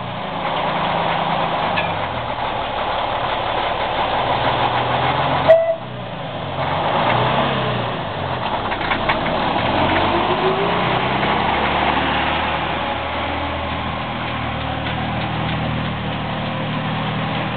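Engine of a D04 narrow-gauge diesel locomotive running as the locomotive moves slowly past, towing a steam locomotive. A sharp knock comes about five and a half seconds in, and the engine note rises briefly near the middle.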